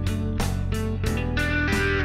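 Background music led by a strummed guitar, its chords changing at a steady pace.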